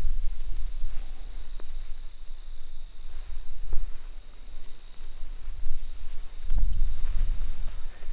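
A steady, high-pitched insect chorus in a marsh at dusk. Low rumbles of wind buffet the microphone, heaviest near the start and again about six and a half seconds in.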